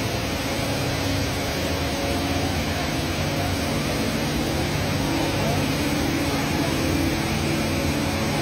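Steady rushing of the Rain Vortex, a tall indoor waterfall pouring from a glass dome into its pool, with a faint low hum beneath it.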